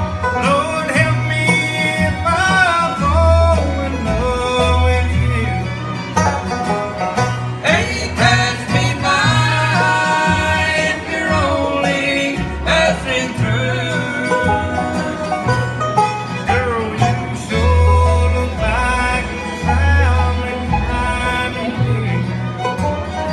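Bluegrass band playing live, with banjo and guitar prominent over a bass line that alternates between low notes.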